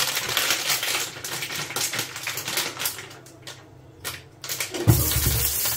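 A rapid run of light clicks and taps from kitchen utensils for about three seconds. About five seconds in, a steady frying sizzle starts as whole frankfurter sausages go into hot oil in the pan.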